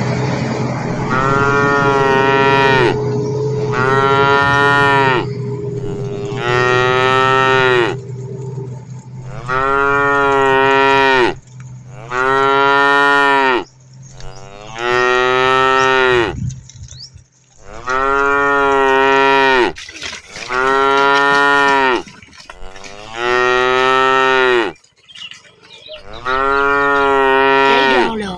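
Cattle mooing over and over: about a dozen loud calls, each a second or two long, come one after another with short gaps. A low steady hum runs under the first half.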